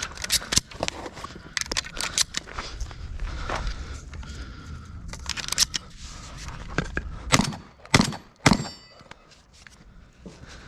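Handling noise of clicks and small rattles, with three sharp knocks a half second apart about seven and a half seconds in.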